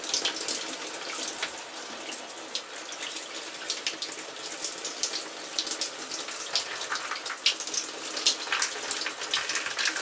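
Hand-held shower head spraying water in a shower cabin: a steady hiss with scattered small splashes of drops. The water is left running to warm up, still cold at first.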